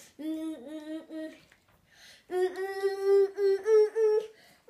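A young child humming a wordless tune: a few short notes, a pause of about a second, then a run of longer held notes that step slightly higher near the end.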